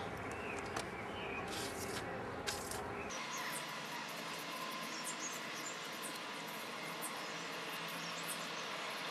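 Faint outdoor background: a steady hiss with scattered small high chirps and a few light clicks. A low rumble under it drops out about three seconds in.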